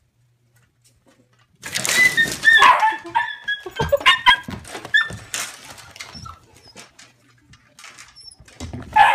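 A dog vocalising in a rapid string of short, loud calls, starting about a second and a half in after near silence.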